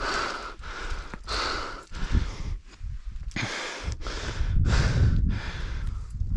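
A rock climber breathing hard from exertion in quick, noisy breaths, about one and a half a second, over a low rumble.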